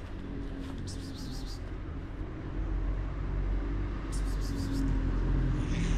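Outdoor street ambience: a steady low rumble, with short bursts of high twittering about a second in and again around four seconds in.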